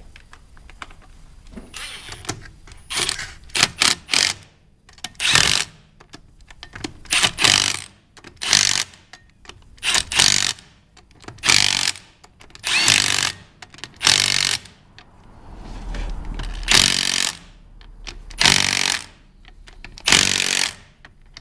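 Impact wrench hammering bolts down in a series of short bursts, about a dozen, each under a second long with brief pauses between, as the clutch bolts on a Vermeer 502 stump grinder are run in before torquing.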